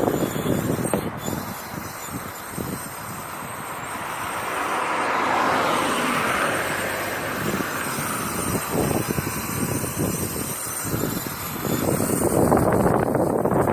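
Car driving on the road: steady tyre and road noise that swells and fades again in the middle.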